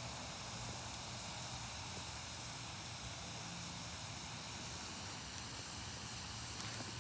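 Wood fire burning with a steady hiss.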